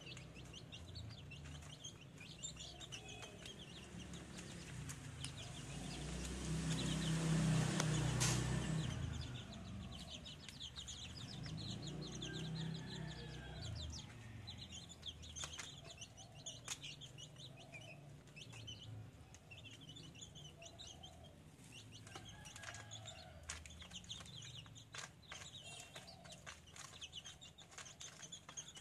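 Caged chickens clucking softly, with many short high chirps throughout. About seven seconds in, a louder low rumble swells and fades, with a sharp click at its peak.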